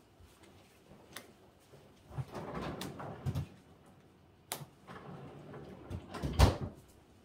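Game cards being dealt and slid across a tabletop, with light clicks and rustling, and a louder knock on the table about six seconds in.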